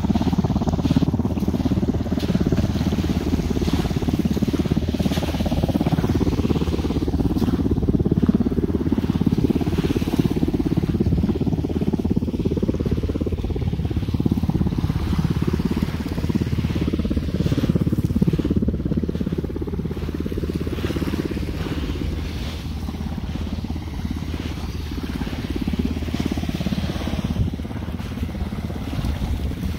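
A boat's motor running steadily: a continuous low rumble that eases off slightly in the second half.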